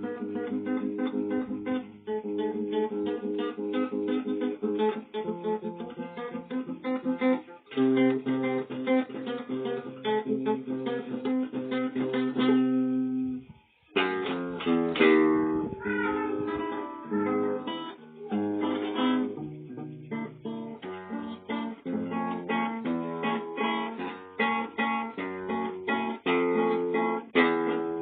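Acoustic guitar playing chords, with a short break about halfway through.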